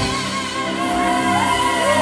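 A woman singing into a microphone over a live band with upright bass, holding long notes, her voice swooping in pitch in the second half.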